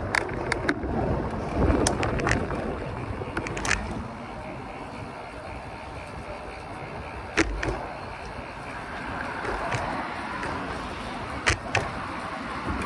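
Bicycle wheels rolling along a paved path, with a steady rush of tyre and wind noise that is rougher for the first few seconds, then eases. Sharp clicks and knocks break through now and then, the loudest two about seven and eleven seconds in.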